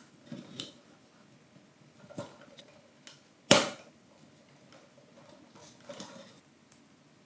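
Wooden kit pieces clicking and knocking as they are handled and fitted together. There are a few soft clacks, with one sharp crack about three and a half seconds in.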